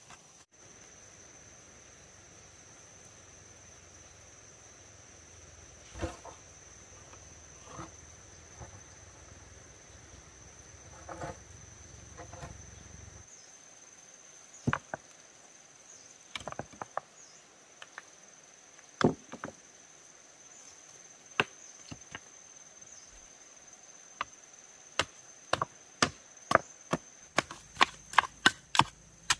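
Dull knocks of a bamboo pole tamping soil and stones around the base of a wooden post. They are scattered at first, then come quickly, about two a second, in the last few seconds. A steady, high-pitched insect drone runs underneath.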